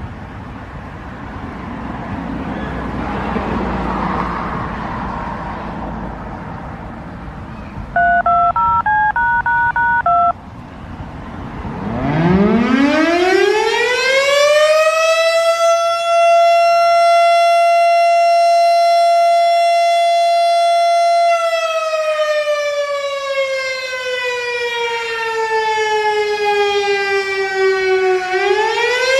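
Outdoor tornado warning siren winding up to a steady wail of one pitch, holding it, then winding down and starting to wind up again near the end. About eight seconds in, a quick run of telephone keypad (DTMF) tones plays, and before that there are several seconds of indistinct noisy sound.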